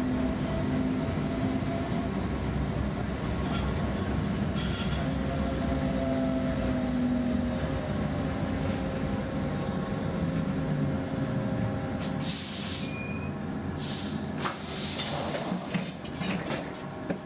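Gothenburg M31 tram running with a steady rumble and motor hum, the hum falling in pitch as it slows into a stop. Near the end, several short hisses as it comes to a halt.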